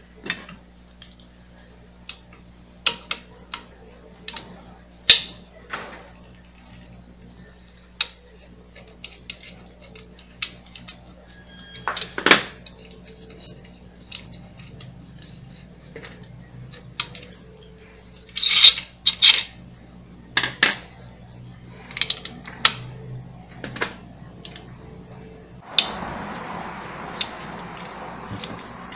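Small metal parts and tools clicking and clinking as nuts are taken off an orange-juicer motor by hand: scattered sharp taps and knocks, some in quick clusters. A steady rustling scrape comes in over the last few seconds.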